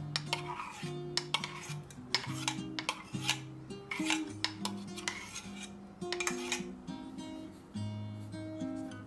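Kitchen bowls and utensils clinking and scraping, a dozen or so irregular sharp clinks, over background acoustic guitar music.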